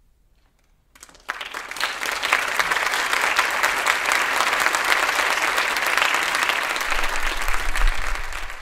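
A short near-silent pause, then a concert audience bursts into applause about a second in. The clapping stays steady after that.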